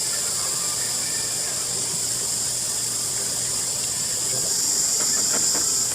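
A steady high-pitched hiss, getting slightly louder in the last second or so.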